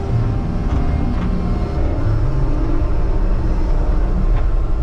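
Skid steer engine running steadily, heard from inside the operator's cab, with the pitch rising briefly about two seconds in as the machine works.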